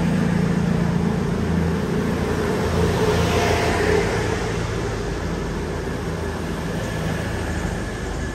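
CrossCountry Class 221 Super Voyager diesel-electric train pulling out of the platform, its underfloor diesel engines running under power as the carriages roll past with a steady low hum.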